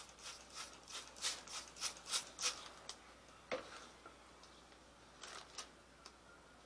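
Hand-held trigger spray bottle spritzing a cutting board: about ten quick squirts, roughly three a second, over the first three seconds. A single knock follows about a second later.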